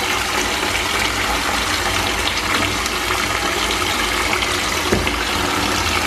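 Water running from the tap into a bathtub, a steady rush of water.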